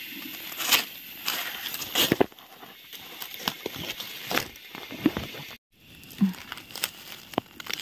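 Scattered crackling and snapping of dry leaf litter and twigs, irregular and uneven.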